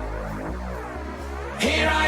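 Electronic backing music of a rock-anthem song: a bass line stepping between notes under a sweeping synth, with the full, louder mix coming in near the end.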